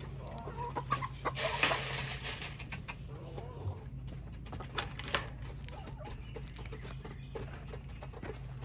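Chickens clucking, with a brief rustling scuffle about a second and a half in.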